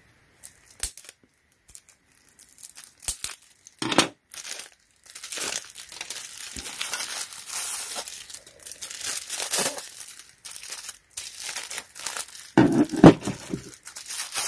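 Plastic packaging crinkling and tearing as it is handled and pulled open, with scattered clicks and knocks and a louder jumble of knocks near the end.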